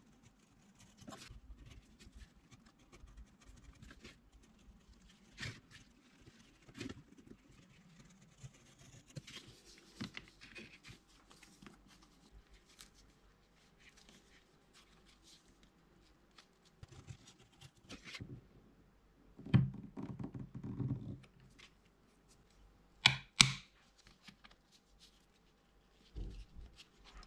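Quiet leatherworking handling sounds: a knife scratching through leather, leather pieces rustling and shifting on the cutting mat, and scattered clicks and knocks as tools are picked up and set down, the loudest clatter coming about two-thirds of the way through.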